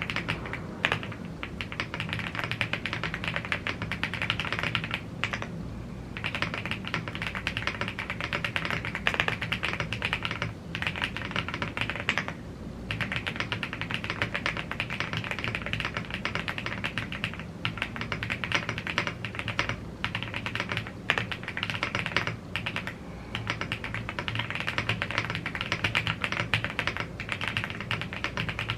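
Fast, continuous typing on a YUNZII AL75 gasket-mounted aluminium mechanical keyboard with Blue Grey tactile switches and double-shot PBT keycaps. It is a dense stream of key presses, broken by a few short pauses.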